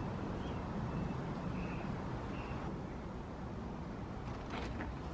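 Steady low rumble of outdoor background noise, with a couple of light clicks near the end.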